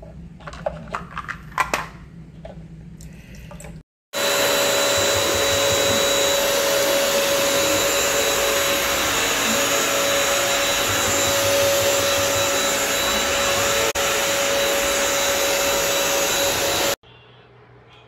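Bissell CrossWave Pet Pro wet-dry vacuum mop running: a steady, loud motor and brush-roll noise with a hum and a high whine. It starts suddenly about four seconds in and cuts off about a second before the end. Before it there are a few quieter clicks and knocks.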